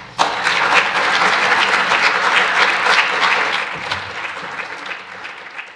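Audience applauding. It starts suddenly and dies away gradually over the last few seconds.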